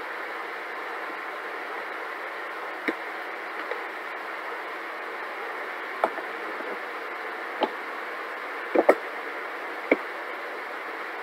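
Hard plastic clicks and knocks over a steady hiss, made by a plastic food-storage container as its scoop taps it and its lid is set on and the clip latches are snapped shut. There are a few sharp clicks from about six seconds in, two in quick succession near nine seconds, and a last snap near ten seconds.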